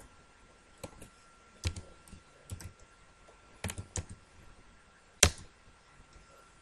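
Computer keyboard keys pressed one at a time, about ten scattered clicks as a coordinate entry is typed, with one sharper, louder keystroke about five seconds in: the Enter key confirming the entry. A faint steady high tone sits underneath.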